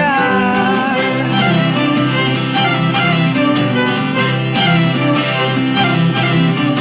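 Instrumental passage of an acoustic string arrangement: cellos bowing sustained notes over acoustic guitar, with a sung note sliding down and fading near the start.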